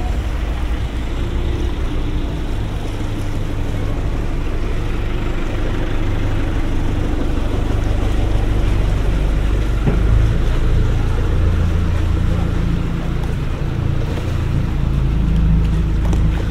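Engine of a small motor work boat passing close by, a steady low drone that swells in the second half, with the water churning in its wake.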